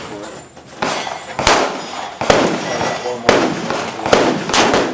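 Gunshots on a firing range: about six sharp reports at irregular intervals, each with a short echo.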